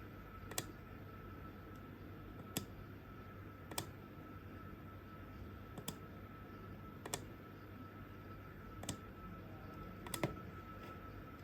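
Small slide switches on an FPGA development board being flipped on and off to enter cash inputs: about seven sharp clicks, one every second or two, over a faint steady tone.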